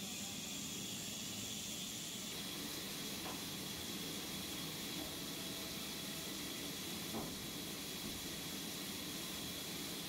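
Large horizontal band sawmill running, a steady high whine over a constant hiss, with a faint knock about seven seconds in.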